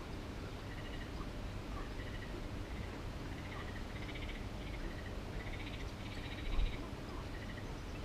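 Frogs calling: short pulsed croaks repeating roughly once a second, with a single low bump about six and a half seconds in.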